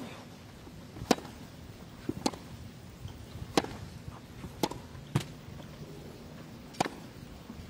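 Tennis rackets striking a tennis ball back and forth in a baseline forehand rally: a string of sharp pops about every one to one and a half seconds, with a few fainter knocks between them.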